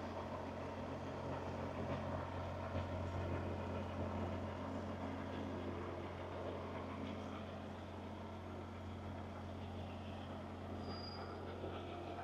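Semi truck's diesel engine running steadily at low revs while the tractor-trailer backs up to a loading dock.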